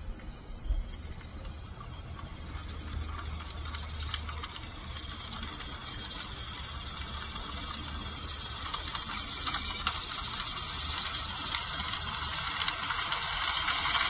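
A WPL C24-1 1/16-scale RC truck's small electric motor and geared drivetrain whine and rattle as it drives over dry leaf litter and dirt. The sound grows steadily louder as the truck closes in on the microphone.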